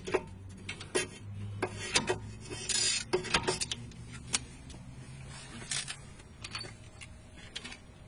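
Hand ratchet and socket clicking and clinking as the rear brake caliper bolts of a BMW E39 are worked loose: scattered sharp metallic clicks, with a short quick run of clicks about three seconds in.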